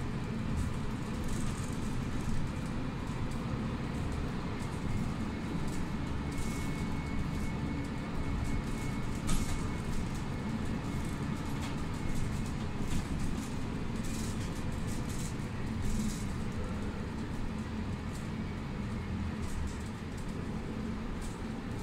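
Mercedes-Benz Citaro C2 city bus heard from inside while under way: a steady engine and road rumble, with a few sharp clicks from the cabin.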